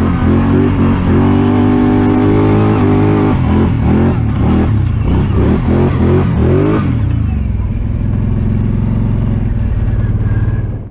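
Utility ATV engine running. It holds a steady pitch at first, then revs up and down several times, then settles to a lower, steadier note.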